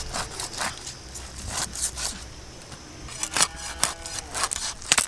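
Chitol (clown knifefish) being cut into pieces against an upright boti blade: irregular sharp scraping strokes of the blade through the scaly skin and flesh, some in quick clusters, the loudest about three and a half seconds in.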